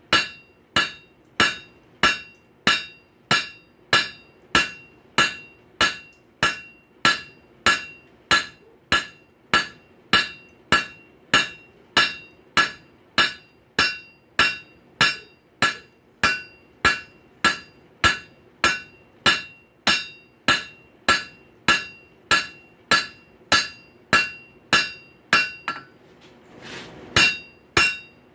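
Blacksmith's hammer drawing out a rail spike on an anvil: steady, ringing blows at about three every two seconds. The hammering breaks off for about a second near the end, then starts again.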